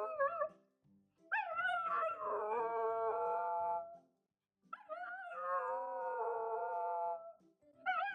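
A dog howling in long drawn-out howls, each wavering at the start and then held steady for about three seconds, with short breaks between them.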